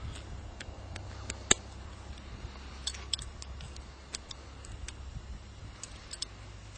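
Banding pliers clicking as a metal crimp band is squeezed shut around a red-tailed hawk's leg: scattered sharp metallic clicks, the loudest about a second and a half in, over a steady low rumble.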